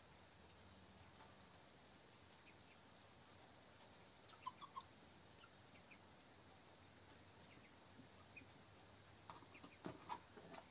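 Near silence: room tone, with a few faint short chirps about halfway through and a brief cluster of faint clicks and chirps near the end.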